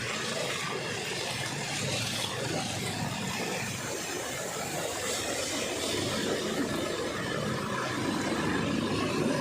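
A vehicle on the move, with a steady, even rush of road and running noise and no distinct engine tone.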